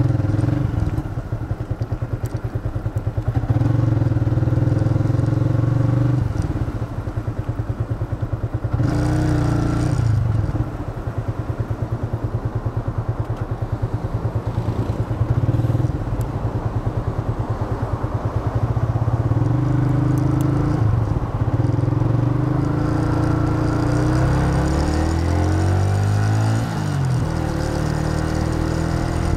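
Yamaha FZ150i's single-cylinder four-stroke engine running under way. Its pitch rises and falls with throttle and gear changes, most clearly near the end. It carries a rattling buzz from the bike's holder that sounds like a CNG auto-rickshaw.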